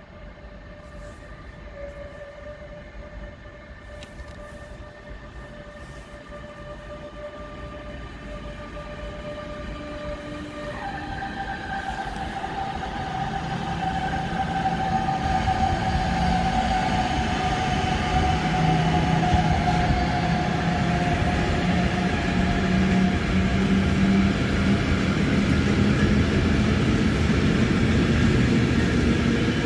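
A freight train of tank wagons, hauled by a Captrain TRAXX electric locomotive, approaches and passes. The locomotive's electric drive whines steadily and steps down in pitch about ten seconds in. The sound grows louder until the wagons roll past with a steady rumble.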